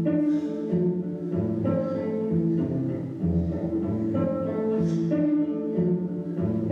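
Slow instrumental music of held low, string-like notes, with a deep bass note that returns about every three seconds.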